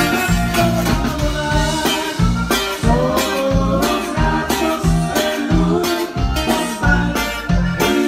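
Live band playing an upbeat Tejano dance song: a steady bouncing bass beat about twice a second under guitar, a melody line and singing.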